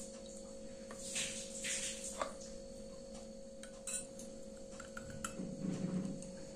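A metal spoon stirring soy sauce into water in a white bowl, giving a few light clinks against the bowl and soft swishes of liquid. A faint steady hum sits underneath.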